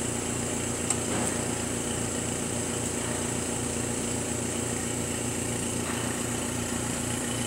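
Steady mechanical hum of running lab equipment: an even, unchanging drone with a faint click about a second in.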